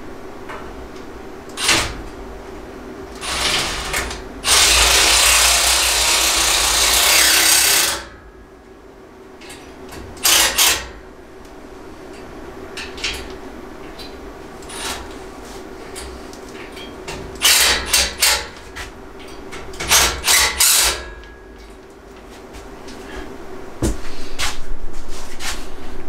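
Cordless drill driving screws into a steel rack frame: several short bursts and one longer run of about three and a half seconds near the start, with small metal clicks between.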